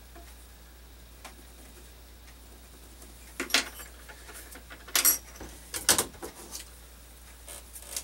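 A few sharp clacks and clatters of small hand tools and parts handled on a desk, grouped in the middle with a low room hum between them.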